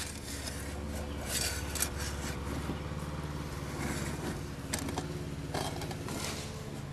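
Scrapes and light metallic clinks from a Honda ATC185s recoil starter's pulley and housing being handled and turned, a few short ones scattered through, over a steady low mechanical hum.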